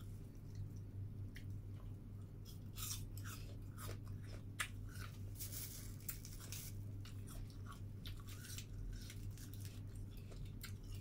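A person chewing crisp apple, with many short crunches in quick succession, thickest in the middle, over a steady low hum.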